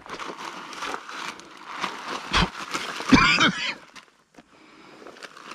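A man coughing and spluttering, loudest about three seconds in, as he clears midges he has breathed in.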